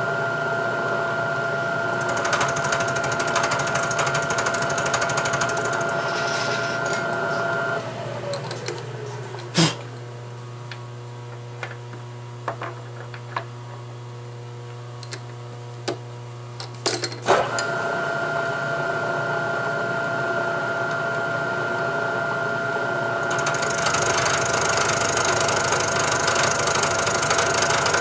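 Milling machine spindle running with an end mill cutting the head of a clamp bolt square, a steady whine under the cutting noise. About eight seconds in the spindle winds down, followed by a few sharp clicks and knocks; the spindle comes back on a little after the middle and the cutting gets louder again near the end.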